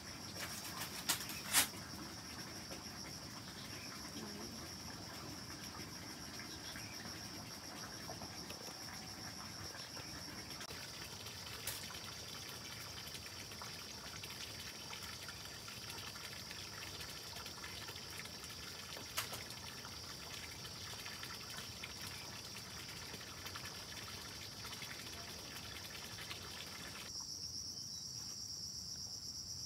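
Steady high-pitched chorus of insects chirring, over a low rushing hiss that cuts off shortly before the end. A couple of sharp clicks about a second in, and single clicks later on.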